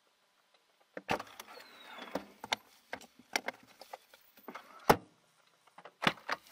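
A series of irregular knocks and clicks with rustling between them, starting about a second in, with a brief falling squeak early on the way and the loudest knock about five seconds in.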